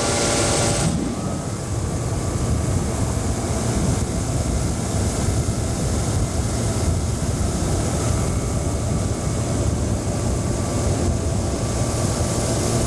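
Outboard motor of a small boat running steadily underway, a dense low rumble with rushing wind and water noise, with a brief hiss in the first second.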